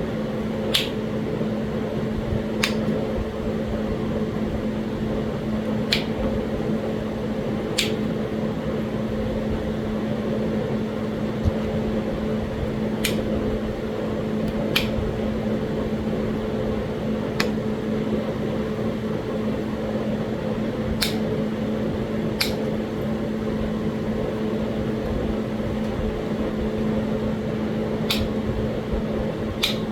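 Sharp stone-on-stone clicks of Talahata quartzite being knapped, about a dozen single strikes spaced unevenly a second or several apart. Under them runs a steady machine hum.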